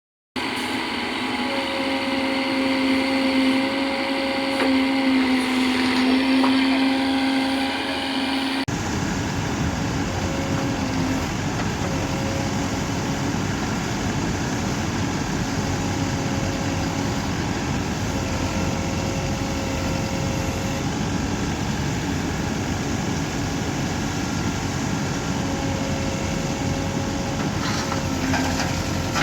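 Diesel engine of a Tata Hitachi Shinrai Prime backhoe loader running steadily with a low hum. About nine seconds in the sound changes abruptly and carries on as a steady, noisier engine sound.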